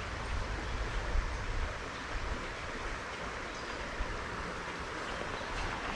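Steady rushing of a small creek's flowing water, with a low rumble underneath.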